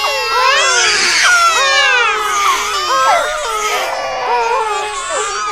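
Many babies crying at once, their overlapping high wails rising and falling continuously.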